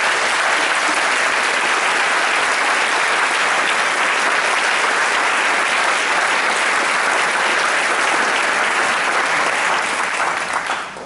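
Audience applauding, steady and loud, dying away near the end.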